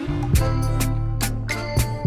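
Background music: an instrumental track with a sustained bass line and a steady drum beat.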